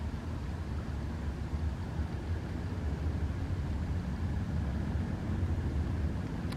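Steady low outdoor rumble with a faint hiss above it and no distinct events.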